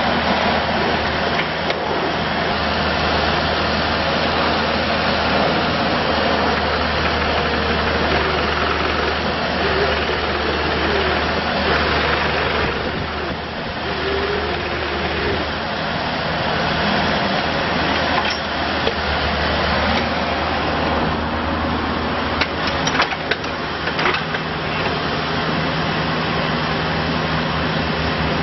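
Bobcat E42 mini excavator's diesel engine running steadily, with a few sharp knocks about three quarters of the way through.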